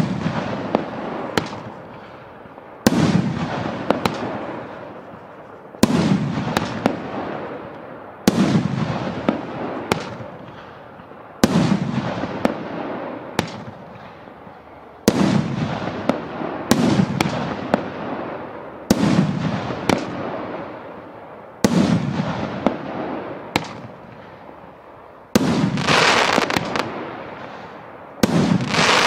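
A 50 mm, 75-shot compound firework cake firing its shells one after another. There is a sharp bang about every three seconds, about ten in all, each followed by a few smaller cracks and a fading rumble.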